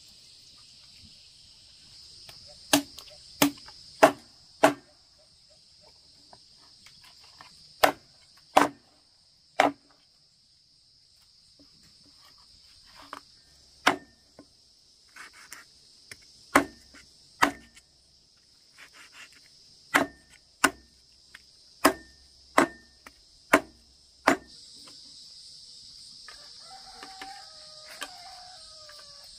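Heavy cleaver chopping boiled chicken on a thick wooden chopping block: sharp chops in uneven runs of two to four, stopping a few seconds before the end. A steady chirring of crickets runs underneath.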